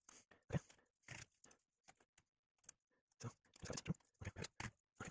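Scissors cutting through a soft thermal pad: a series of short, irregular snips, faint and close.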